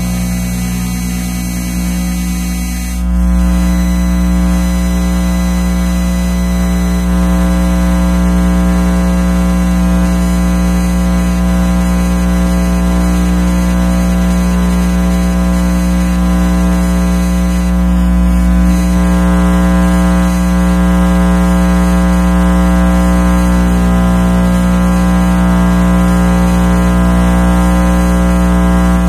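Radio frequency interference from electronic devices picked up by an RFI probe: a steady electrical buzz over a low hum, made of many stacked steady tones. It gets louder about three seconds in and changes character again around nineteen seconds.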